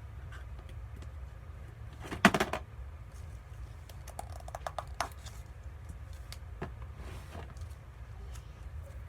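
Slime being squished and poked, making small sticky clicks and pops over a low steady hum, with a loud cluster of pops about two seconds in and a few quieter ones a couple of seconds later.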